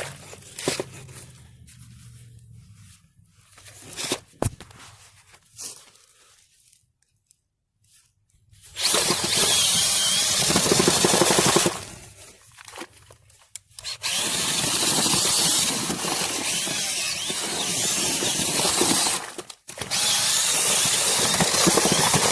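Power drill with a mixing paddle churning concrete in a bucket, running in bursts: about three seconds, a pause, then a longer run with a brief stop near the end. Before it, light scraping and knocking.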